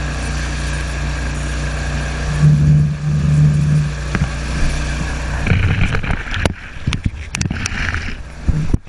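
Motorboat engine droning steadily under the rush of the wake's whitewater and wind on the microphone. From about five and a half seconds in the sound turns choppy, with splashes and crackles of spray hitting the camera as it skims the wave.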